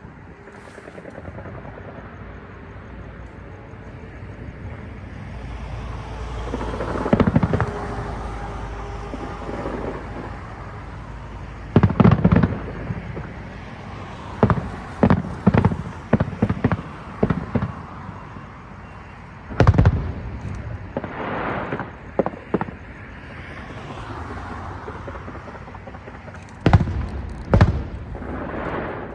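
Aerial firework shells bursting: separate booms and sharp cracks, some single and some in quick runs of four or five, over a steady low rumble.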